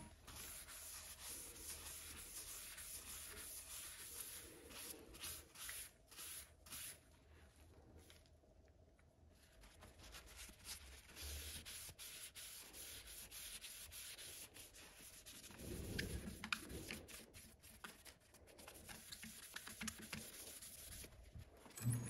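Quiet, scratchy rubbing of a hand-held pad against a maple and epoxy resin vase spinning on a wood lathe, in the finishing stage.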